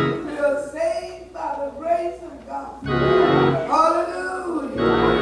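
Church organ playing held chords under a woman's preaching voice.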